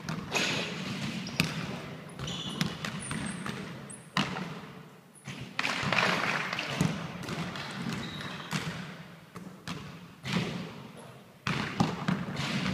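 A basketball bouncing on a wooden sports-hall floor and striking the hoop: a series of sharp thuds at irregular intervals, each echoing in the large hall.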